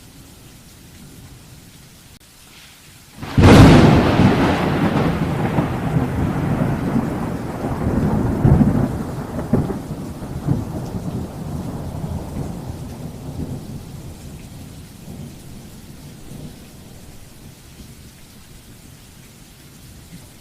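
A thunderclap cracks suddenly about three seconds in, then rumbles on in low surges and slowly fades over about ten seconds, over a steady low background hiss.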